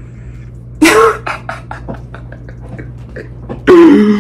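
A person making non-word mouth noises over a steady low hum: a loud burst of voice just under a second in, then a quick run of short clicks and pops, about five a second, then a loud held vocal tone near the end.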